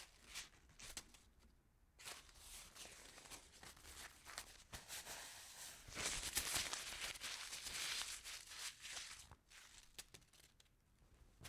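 A sheet of paper being crumpled by hand: dense crackling and crinkling that starts as a few separate crackles, runs on steadily for several seconds, is loudest in the middle, and thins to scattered crackles near the end.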